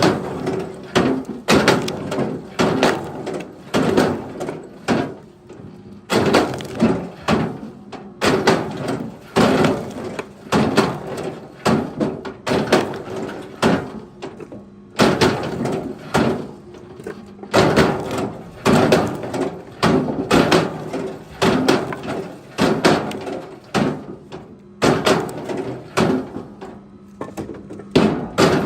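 Rapid, irregular wooden knocks and thuds of firewood being handled and dropped, in clusters with short pauses, over a faint steady hum.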